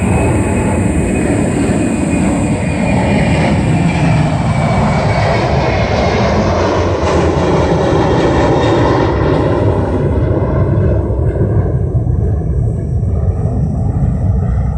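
An aircraft passing overhead: a loud, steady engine noise whose tones slowly glide lower, the higher part fading away in the last few seconds.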